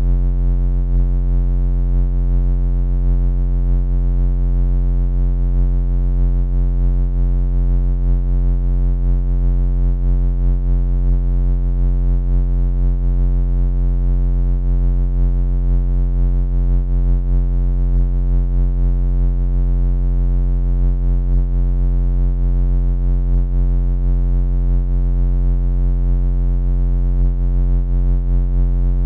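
Synthesized laser sound effect: a continuous low electronic buzzing hum with many overtones, steady in pitch and loudness throughout.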